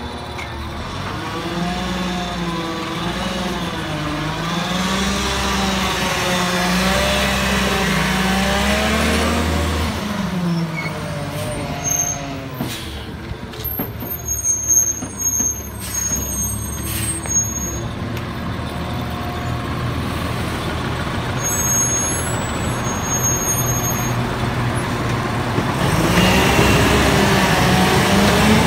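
Front-loader garbage truck's engine running as it moves slowly, its pitch rising and falling, with air brake hisses and high brake squeals through the middle. Near the end the engine revs up as the truck pulls away.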